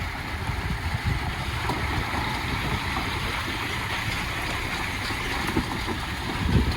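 Wind buffeting the microphone in irregular low gusts, over a steady outdoor rumble and hiss.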